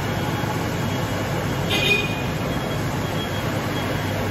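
Corded electric walk-behind floor scrubber running steadily, its brush scrubbing wet tile with plain water, giving a constant low machine hum. A brief high squeak sounds about two seconds in.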